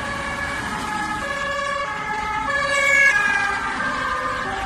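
Electronic ambulance siren sounding, its pitch stepping between tones about every half second, loudest about three seconds in.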